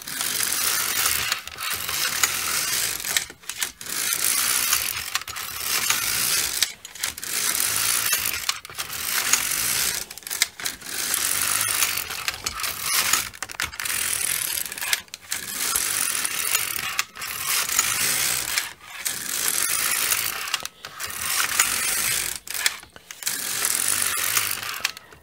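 Silver Reed LK150 knitting machine carriage being pushed back and forth across the plastic needle bed, the needles rattling as it knits row after row: about a dozen passes of a second and a half or so each, with brief pauses at each turn. It is knitting the cuff at a tight tension, very firm fabric that takes quite a bit of pressure on the carriage.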